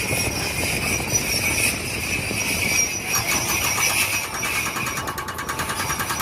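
Engine sound effect of a running motor vehicle engine, steady, with a fast rattle joining in about halfway.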